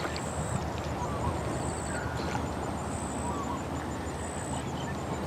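Outdoor ambience: a steady low rumble, with a thin high-pitched line and a few short faint chirps above it.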